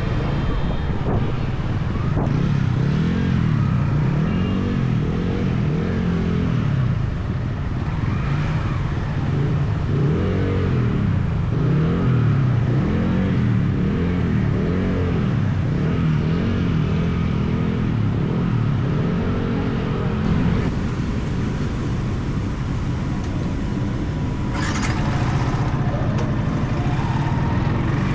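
Yamaha XSR 155's single-cylinder four-stroke engine on its stock exhaust, heard from the bike while riding, its pitch rising and falling repeatedly as the rider accelerates, shifts and eases off. A short hissing burst of noise sounds about three-quarters of the way through.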